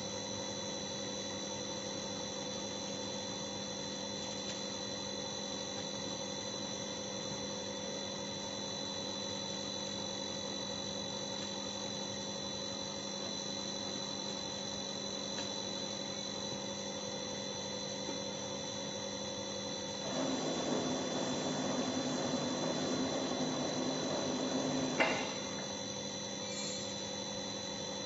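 A 1998 Bobst 102 BMA hot-foil stamping press standing powered up, giving a steady hum made of several fixed tones. About twenty seconds in, a louder noise sets in for about five seconds and ends in a sharp click.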